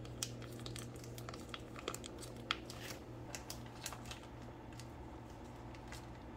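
Foil cheese-sauce pouch crinkling in short, irregular crackles as it is squeezed and wrung out, over a steady low hum.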